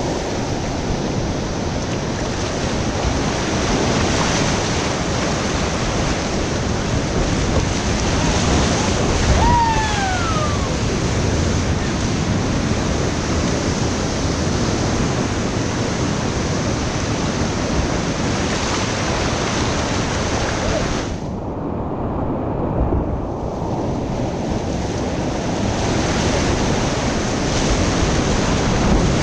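Whitewater rapids rushing steadily, heard through a GoPro with wind buffeting the microphone. There is a short falling tone about ten seconds in, and the treble drops out for about two seconds near the two-thirds mark.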